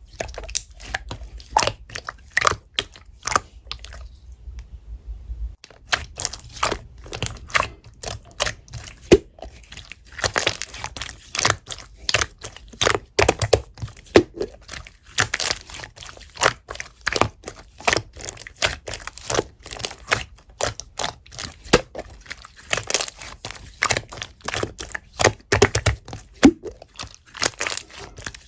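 Slime being squeezed and pressed by hand, giving a run of irregular crackling, popping clicks, sparser for a moment a few seconds in.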